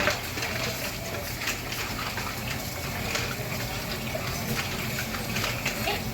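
Mussels, garlic and onions sautéing in a pot on the stove: a steady sizzle, with scattered light clicks as they are stirred.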